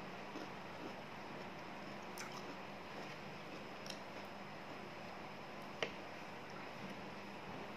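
Faint close-miked chewing of crunchy green beans, with small mouth clicks over a steady background hiss. About six seconds in comes a single sharp click as wooden chopsticks tap the plate.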